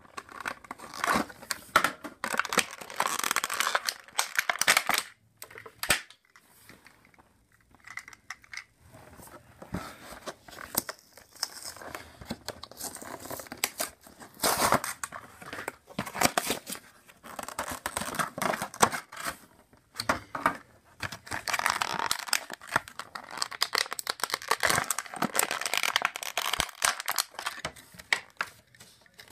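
Cardboard and plastic toy packaging being torn open and crinkled by hand, in irregular crackly bursts with short pauses.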